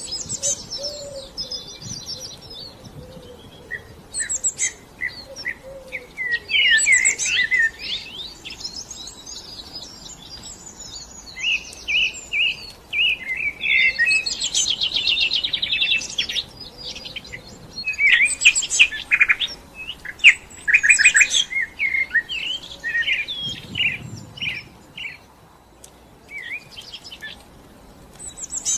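Songbirds chirping and singing: a dense run of quick, varied chirps and trills, thicker in stretches and thinning near the end.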